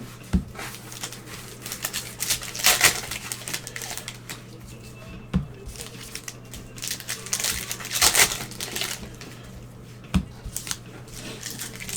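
Trading cards and their packaging being handled: crinkling and rustling in two spells, with a few soft knocks on the table.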